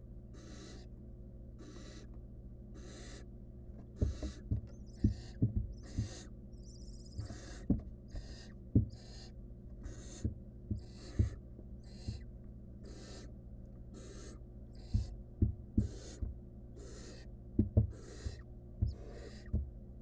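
Barn owl nestlings giving their rasping, hissing begging calls, repeated about every half second over a steady low hum. Sharp knocks and thumps of nestlings scuffling on the nest box floor come in from about four seconds in and are the loudest sounds.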